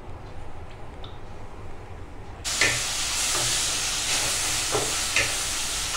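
Capsicum, carrot and green chilies sizzling in a hot steel wok while being stir-fried with a wooden spatula, the spatula scraping the pan a few times. The loud sizzle starts suddenly a little before halfway, with only a quieter low hum before it.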